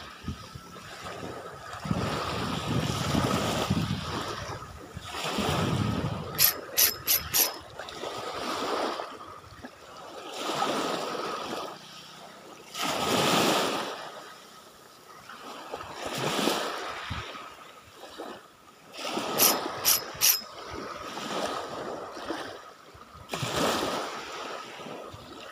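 Small waves washing up onto a sandy beach and drawing back, in surges every few seconds. Two short runs of three or four sharp clicks, about six seconds in and again past the middle.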